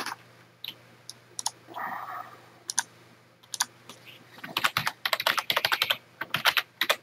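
Typing on a computer keyboard: a quick run of keystrokes starting about four and a half seconds in, after a few single clicks.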